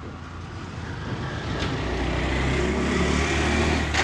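A vehicle's low engine rumble swells louder over the first three seconds or so. Two sharp clicks stand out, one partway through and one near the end.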